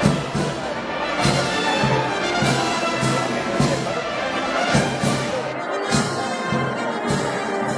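Brass band playing festival music for the Moros y Cristianos, with trumpets and trombones over a steady drum and cymbal beat of a little under two strokes a second.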